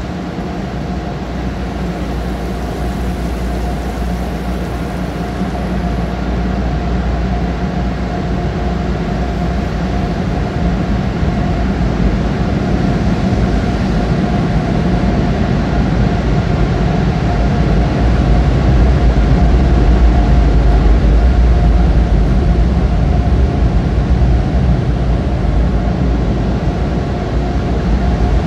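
Car wash tunnel air-dryer blowers running, heard from inside the car: a steady loud rushing noise with a faint whine, growing louder as the car moves toward them.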